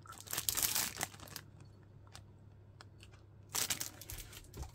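Clear plastic parts bag crinkling and rustling as it is handled, in two short bouts: one just after the start and one near the end.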